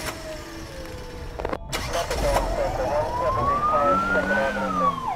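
Police siren sound effect in a channel intro: one wail that rises slowly for about two seconds and then falls near the end, over a low rumble about two seconds in and a few sharp clicks before it.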